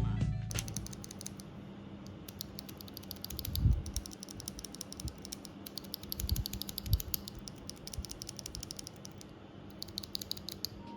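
Typing on a custom mechanical keyboard fitted with Gazzew Boba U4T tactile switches: a steady run of quick key presses, with a louder knock about four seconds in.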